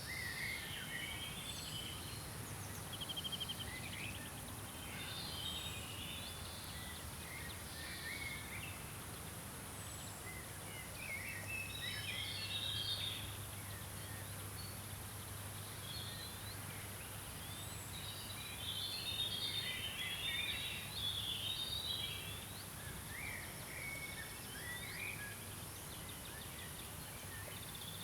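Several songbirds singing and chirping in short phrases, busiest around twelve and twenty seconds in, over a steady high hiss.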